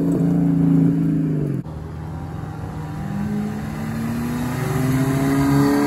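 A Lexus sedan's engine accelerating away, its pitch dropping just before the sound breaks off suddenly about a second and a half in. Then an Audi sedan's engine pulling out, its note rising steadily.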